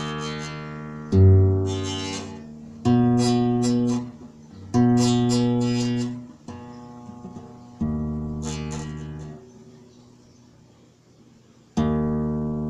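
Background music: guitar chords struck slowly one at a time, five in all, each left to ring and fade, with a longer pause before the last.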